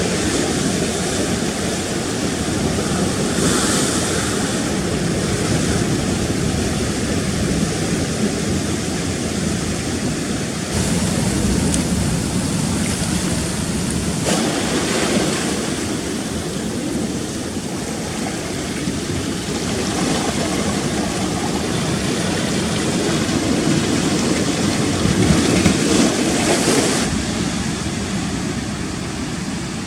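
Rough sea surf breaking and washing over rocks in a loud, continuous rush that swells with several bigger waves, with wind buffeting the microphone.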